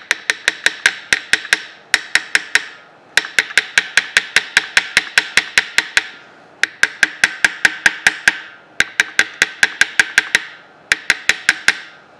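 Quick, sharp metal-on-metal taps on the shaft end of a 3-horsepower Baldor electric motor, about six a second, in runs of one to three seconds with short breaks, working loose a stuck half-round key after penetrating oil.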